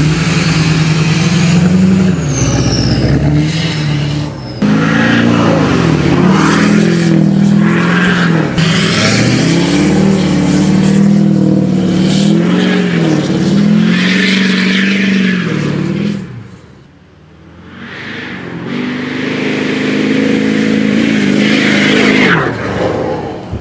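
Emissions-deleted 2007 LBZ Duramax 6.6 L V8 turbo-diesel, running through a 5-inch straight pipe, revving hard and repeatedly as the pickup drifts, the exhaust note rising and falling. About two-thirds through it fades for a couple of seconds, then builds again.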